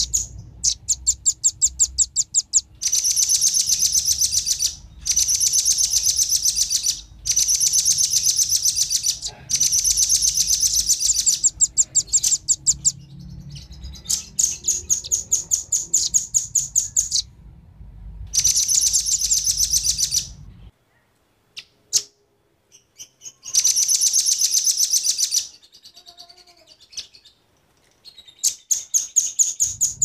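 Velvet-fronted nuthatches, male and female, calling: fast, high trills of sharp chirps in bursts of about two seconds, repeated with short gaps and a longer pause about two-thirds of the way through.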